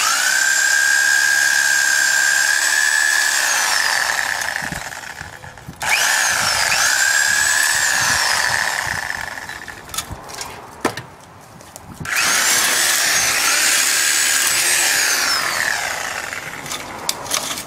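Handheld reciprocating saw (Sawzall) cutting through steel fence cable. Its motor whine starts abruptly, holds steady for a few seconds and then winds down, three times over.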